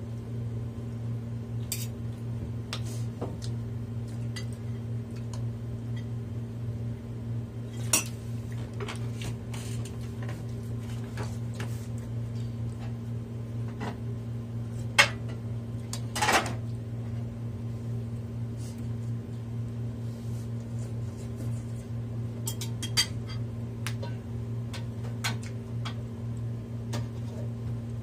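Cutlery clinking and scraping against dishes during a meal, in scattered sharp clicks, a few of them louder, over a steady low hum.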